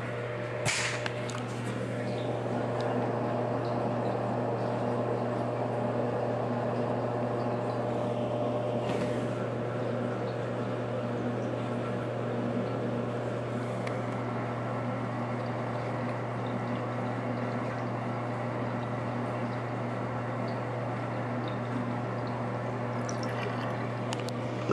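Water running steadily into a sink basin and down the drain.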